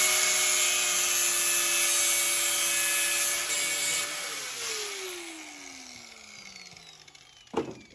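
Electric angle grinder grinding metal, its motor running at a steady whine under a harsh grinding hiss. About four seconds in the grinding stops and the motor is switched off, its pitch falling as it winds down over about three seconds.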